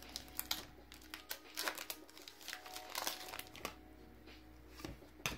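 Foil wrapper of a Pokémon card booster pack crinkling and tearing as it is opened by hand: a dense run of crackles that dies down about three and a half seconds in, with one more sharp click near the end.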